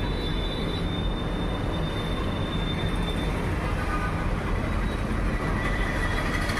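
Sewing machine running steadily at speed, stitching fabric, with a continuous rapid mechanical clatter. The machine has just been cleaned and adjusted to quiet it.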